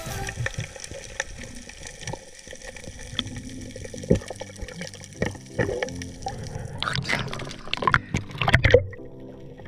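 Muffled underwater sound with scattered clicks and knocks, then water splashing and churning for about two seconds near the end as a diver breaks the surface.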